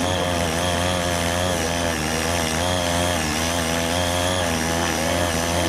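CY80 mini tiller's 78.5 cc air-cooled two-stroke engine running steadily under load while the tines work the soil. Its note wavers slightly up and down.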